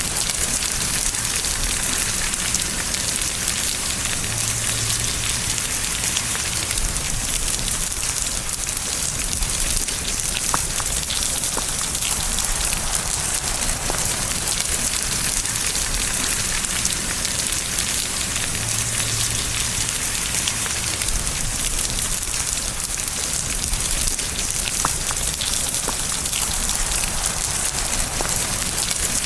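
Steady rain: an even hiss of falling drops, with a few sharper single drop ticks now and then.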